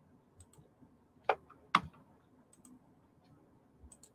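Computer mouse clicking: a few soft, separate clicks, several in quick pairs, with two louder clicks about a second and a half in.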